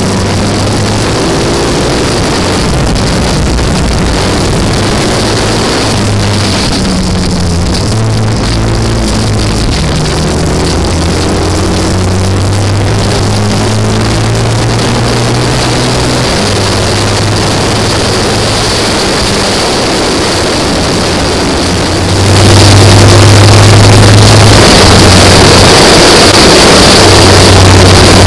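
Classic racing sidecar's engine running hard at racing speed over a loud rushing noise, its pitch shifting up and down through the lap. The whole sound gets louder and brighter about three-quarters of the way through.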